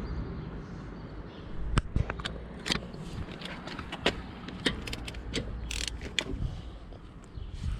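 Irregular metallic clicks and knocks from hand tools and sockets being handled, with a few ratchet-like clicks.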